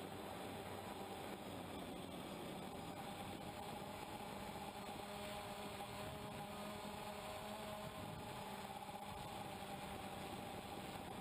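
DJI Phantom quadcopter's motors and propellers humming steadily in flight, heard through the on-board GoPro Hero 2, with a faint pitch that wavers slightly.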